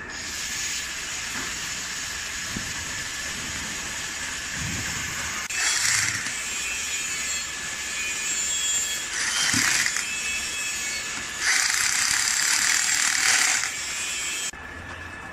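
Handheld electric wrench run in three short bursts, the last about two seconds long, driving bolts into a pump casing. It plays over a steady hiss that cuts off suddenly near the end.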